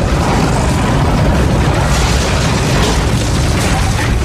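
Logo-sting sound effect: a loud, steady rumble and rush of noise with a heavy low end.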